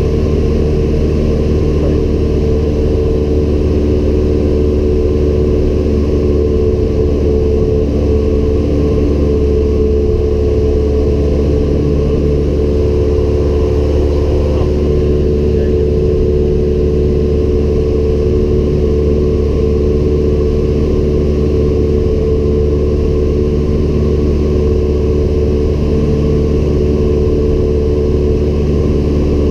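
Cessna 172M Skyhawk's four-cylinder Lycoming engine and propeller running steadily in flight, heard inside the cabin as a constant drone.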